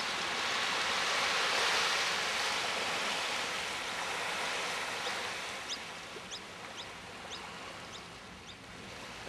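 Steady rushing of waves on the shore, louder at first and easing off. From about halfway, a run of short high chirps comes about twice a second.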